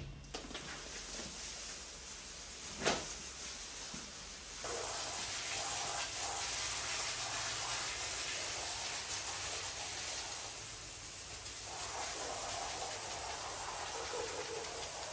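Pressure washer spraying water onto a wet rug: a steady hiss of spray that comes in louder about four and a half seconds in and keeps on. A single knock is heard about three seconds in.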